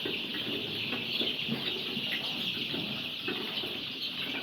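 A large flock of two-week-old layer chicks peeping all at once in a dense, unbroken high chorus, with some low clatter underneath.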